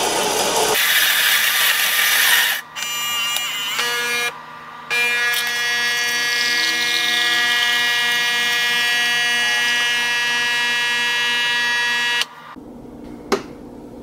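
Saeco Odea Giro Plus II super-automatic espresso machine pumping water through the brew unit to pull a shot. A rushing hiss comes first, then a steady pump buzz with two short breaks in the first few seconds. The buzz stops about twelve seconds in, and a single click follows.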